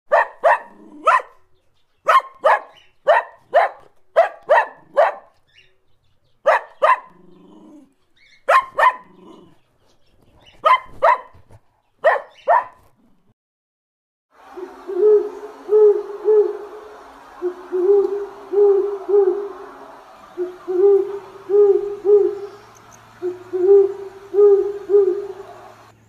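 A puppy barking in quick runs of short, high yaps for about the first thirteen seconds. Then an owl hooting, low notes in repeated groups of three, over a steady background hiss.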